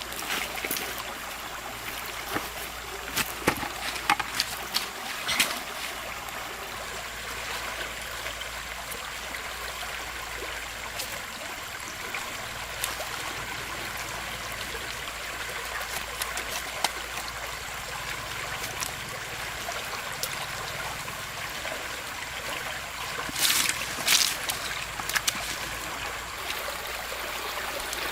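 Fast-flowing river water running steadily, with a few sharp splashes a few seconds in and a louder cluster of them near the end.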